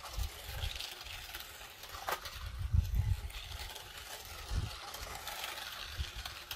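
Small battery-powered New Bright 1:16 Forza Camaro RC toy car driving over rough asphalt, its electric motor and plastic tyres faint. Several low rumbles come and go, with a brief sharp tick about two seconds in.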